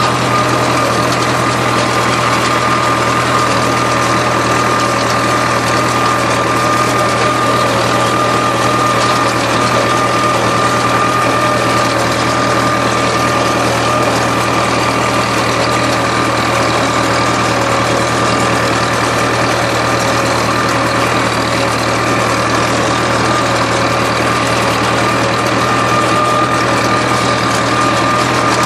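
Tractor engine running steadily while pulling a Case 281 hay rake through cut hay, with a constant high whine over the engine noise.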